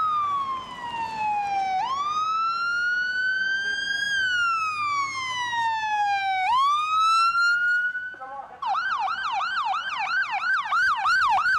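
Ambulance siren sounding a slow wail that sweeps down and back up in pitch, then switches near the end to a fast yelp of about four warbles a second.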